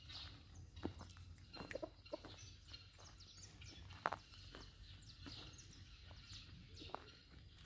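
Faint open-air ambience with birds chirping: many quick, high chirps that fall in pitch. Scattered sharp clicks are heard, the loudest about four seconds in.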